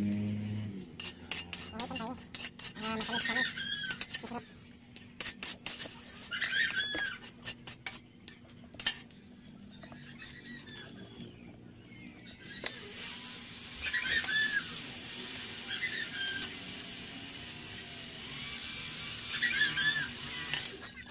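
Metal ladle stirring, scraping and tapping against a wok of cooking oil over a wood fire, in quick clicks through the first half. From a little past halfway a steady sizzle rises as the oil heats.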